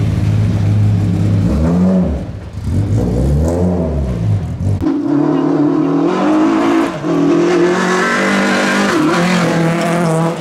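Renault Clio F214 rally car engine: first idling with two quick throttle blips, the revs rising and falling. About five seconds in it changes abruptly to the car under hard acceleration on a gravel stage, the revs climbing and dropping at gear changes.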